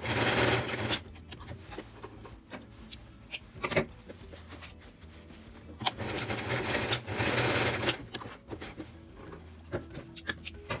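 Electric sewing machine running and stitching in two short runs, one at the start and one of about two seconds some six seconds in. Between the runs there are small clicks and fabric rustling as the cloth is handled.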